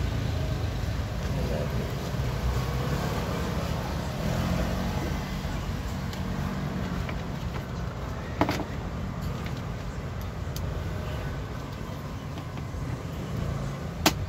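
Steady low rumble of background noise, with two sharp clicks, one about eight seconds in and one near the end.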